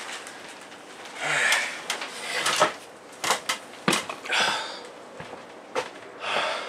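A man breathing hard in short bursts, in pain from a just-hurt knee, with a few sharp knocks of wooden framing and a stepladder as he climbs down from a loft.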